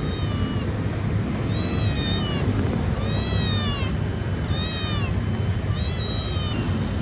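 Calico cat meowing repeatedly as it walks up: about five short meows roughly a second apart, each rising then falling in pitch, over a steady low background rumble.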